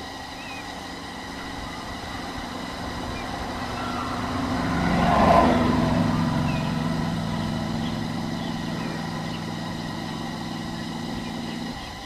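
A motor vehicle's engine running, swelling to its loudest about five seconds in and then fading, with a sudden drop in level just before the end.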